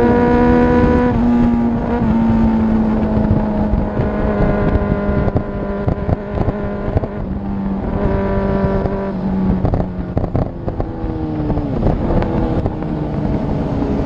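Sport motorcycle engines riding along in a group, heard from one of the moving bikes with wind on the microphone. The engine note holds steady for long stretches and drops in steps, with a brief rise and fall in pitch in the second half.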